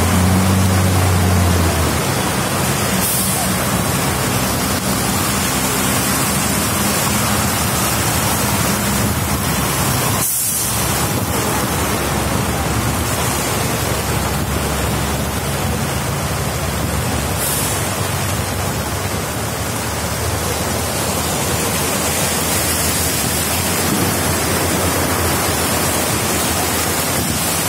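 Steady rushing noise of heavy rain and floodwater flowing across a road. A heavy truck's engine hums low through the first couple of seconds.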